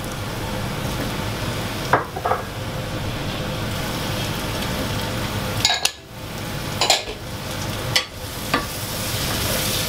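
Chopped red and green peppers tipped into a stainless steel saucepan of frying onions and spices, sizzling steadily, with a handful of sharp knocks as they go in and are stirred with a wooden spoon.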